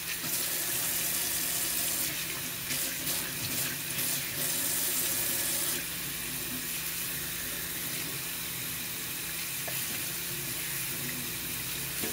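Water running from a single-handle faucet into a sink and splashing as soapy, lathered hands and wrists are rinsed off under the stream. The sound is a steady splashing that grows a little louder for a few seconds about two seconds in.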